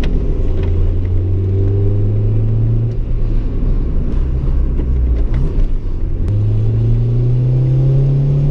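Honda Integra Type R (DC2) four-cylinder engine pulling under acceleration, its pitch climbing steadily. Around five and a half seconds in the pitch drops at a gear change, then it climbs again.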